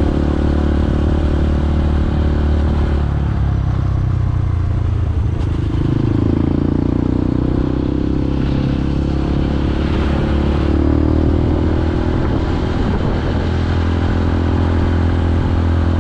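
Motorcycle engine running under way, heard from the rider's seat. About four seconds in the engine note drops as the bike slows, then it climbs again as the bike picks up speed, and it holds fairly steady after that.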